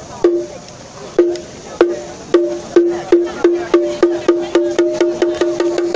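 Song Jiang drum of a golden lion troupe being beaten: single ringing hits start about one a second and speed up steadily into a fast roll of about five a second.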